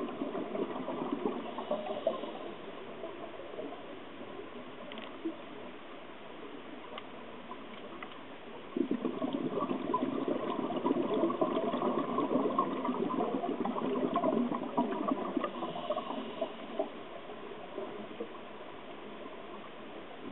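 Scuba diver's exhaled air bubbling out of the regulator, heard underwater. The bubbling dies down about three seconds in, starts again suddenly about nine seconds in and lasts some six seconds, then gives way to a low hiss.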